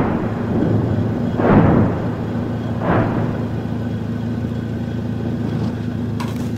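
Shelling: two explosions from artillery or rocket fire, about a second and a half and three seconds in, each a sudden blast with a rumbling decay, over a steady low hum.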